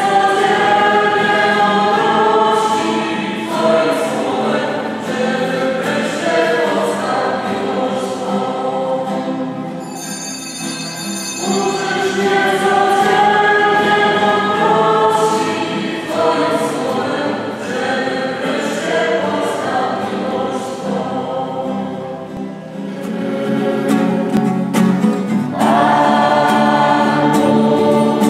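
Mixed choir of adults and children singing a hymn in phrases, with acoustic guitar accompaniment.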